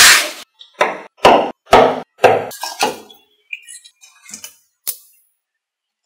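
Small magnetic balls clacking as panels of ball magnets are snapped together: a run of sharp clicks about half a second apart for the first three seconds, a few faint ticks, then one more sharp click near the five-second mark.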